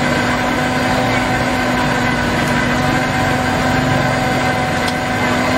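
High-speed countertop blender motor running at full speed, blending a fruit shake, with a steady whine.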